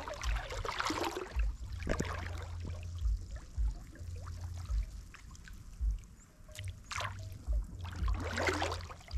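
Shallow water splashing and trickling, loudest in the first second or so, with scattered small clicks and a steady low rumble underneath.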